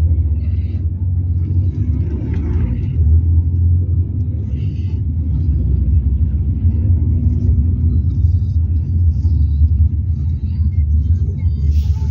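Steady low rumble of a car's engine and tyres heard from inside the cabin while driving in city traffic.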